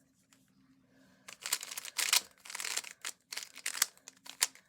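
A speedcube being turned by hand: quick plastic clicks and clacks of its layers snapping round, starting about a second in and coming several times a second.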